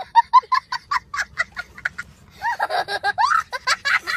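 A young child laughing hard: a quick run of short, high-pitched bursts, about five a second, then longer squealing laughs from about halfway.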